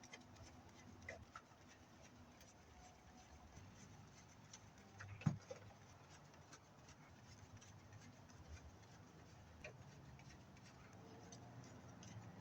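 Near silence with faint scattered clicks and ticks, and a single louder knock about five seconds in.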